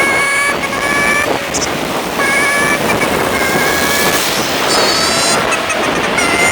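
Riding an electric scooter in city traffic: steady wind and road noise, with high whining tones that come and go several times.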